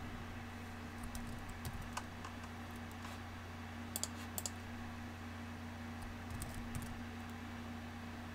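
Scattered computer keystrokes, a few sharp key clicks in small clusters, picked up by a desk USB microphone over a steady low electrical hum.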